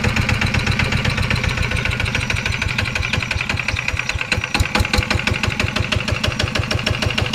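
Yanmar SS80 single-cylinder diesel engine running steadily at idle, a fast even train of firing beats. It runs smoothly and quietly, with no shaking, the sound of an engine in good order.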